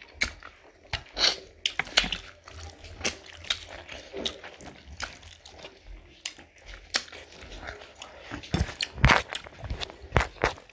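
Two people eating rice and curry with their hands close to the microphone: wet chewing and lip-smacking in irregular sharp clicks, loudest about nine seconds in.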